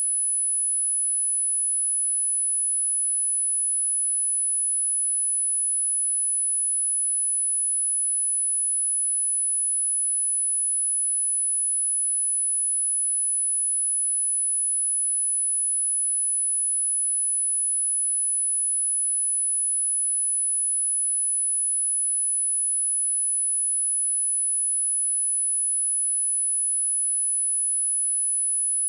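A pure sine-wave test tone at 11001 Hz, a single steady high-pitched whistle held at an even level without a break.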